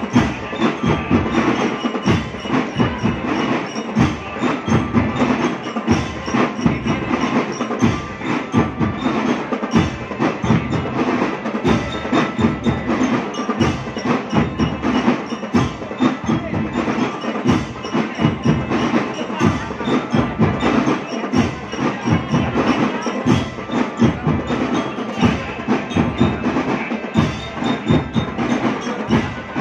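A school marching drum band playing: drums keep up a dense, steady beat, with ringing bell-like mallet percussion carrying a tune over it.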